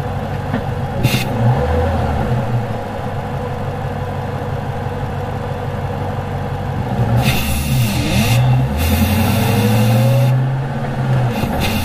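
FPV's supercharged 5.0-litre Miami V8, heard from a microphone under the bonnet, running at a steady low idle, then revving lightly with a dip and rise in pitch about eight seconds in as the car creeps forward. Short bursts of hiss come and go over the engine note.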